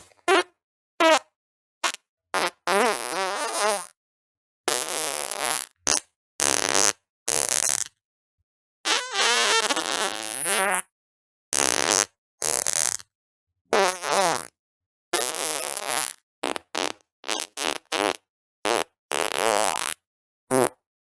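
A rapid string of about twenty separate farts, some short pops and some longer raspy ones with a wavering, buzzing pitch, each cut off cleanly with a moment of silence between.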